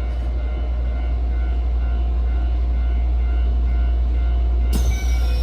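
Keisei Main Line electric train running, with a steady low rumble and a steady motor whine. Near the end a sudden hiss cuts in, carrying a high tone that slowly falls.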